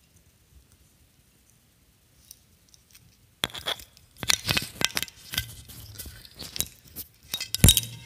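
Near silence for about three seconds, then an empty champagne bottle clinking and rattling in quick, irregular knocks, with a low steady hum joining partway through.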